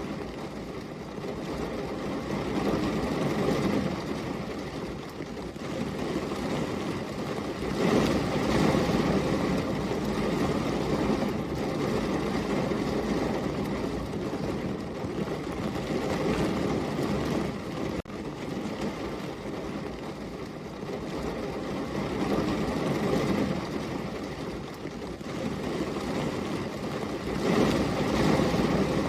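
Heavy rain falling steadily, swelling louder about eight seconds in and again near the end.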